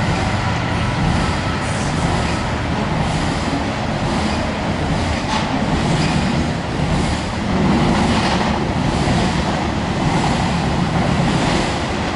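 Double-stack container cars of a Norfolk Southern intermodal freight train rolling over a steel girder bridge: a steady rumble of wheels on rail.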